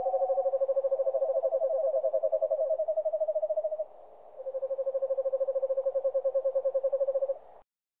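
An owl's trilling call: two long, even trills held on one pitch, each a rapid run of pulses, with a short break between them. The second trill cuts off suddenly near the end.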